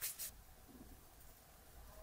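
Two brief brushing strokes of hands rubbing over flour-dusted dough, then quiet room tone with a faint low rumble.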